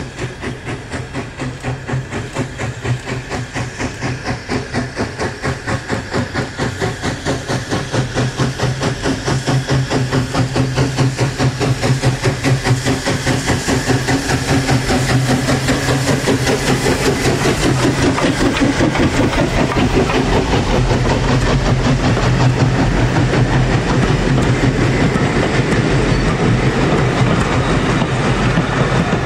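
LNWR Webb Coal Tank No. 1054, a 0-6-2 tank steam locomotive, approaches with a rhythmic exhaust beat that grows steadily louder, then passes close by. Its vintage coaches follow, rolling by with a steady rumble and wheels clicking over the rail joints.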